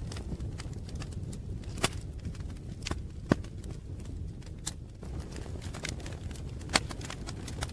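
Wood fire crackling: irregular sharp pops and snaps, a few louder ones, over a steady low rumble.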